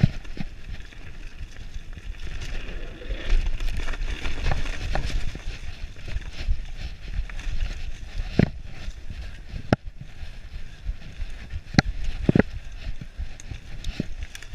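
Mountain bike riding fast over a leaf-covered dirt trail: tyres rolling through dry leaves and dirt with a steady low rumble, broken by sharp knocks and rattles from the bike over roots and bumps, several of them in the second half.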